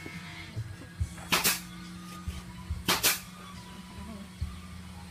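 Cleaver chopping meat on a wooden chopping block: two pairs of sharp chops, about a second and a half in and again about three seconds in, with softer knocks in between.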